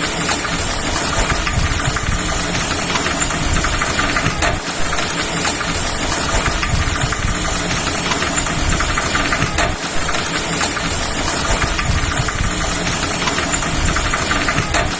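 Old onthel roadster bicycle being pedalled along, with a dense, steady rattle and clicking.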